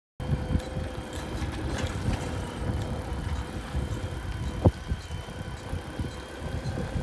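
Bicycle riding along a concrete lane with rumbling wind and road noise on the microphone and a faint steady hum, and one sharp click about four and a half seconds in.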